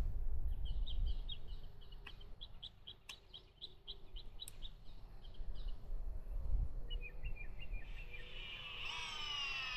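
Birds chirping: a fast run of short, high chirps, several a second, then a lower chirping series and, near the end, a louder call made of falling tones.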